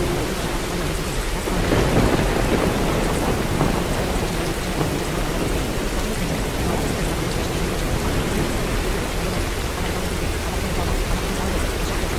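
Rainstorm ambience: a steady hiss of rain, with a rumble of thunder swelling about two seconds in.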